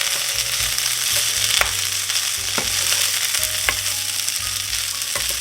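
Corned beef hash of corned beef, potatoes and onions sizzling steadily in butter in a hot frying pan, with a utensil stirring it and knocking against the pan about three times.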